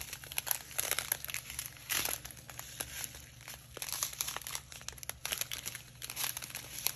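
A strip of heat-sealed clear plastic packets of diamond painting drills crinkling as it is flexed and turned by hand, with many irregular crackles.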